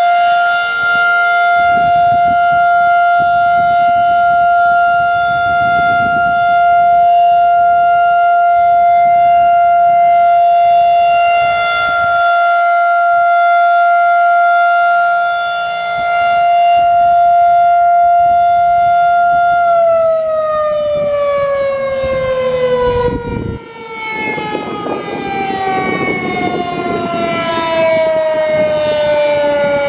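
Federal Signal 2001-DC warning siren holding one steady, loud tone as the end of its one-minute steady alert signal. About twenty seconds in it is shut off and winds down, its pitch falling steadily.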